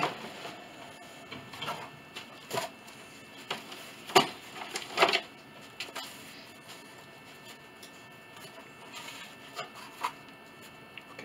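Thin wooden soundboard panels being slid, laid down and pressed flat on a workbench: scattered light knocks, taps and rustling, the loudest a pair of knocks about four and five seconds in.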